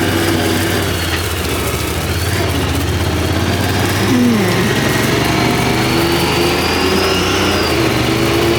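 Side-by-side utility vehicle's engine running while driving, its note dipping and then climbing again as it changes speed.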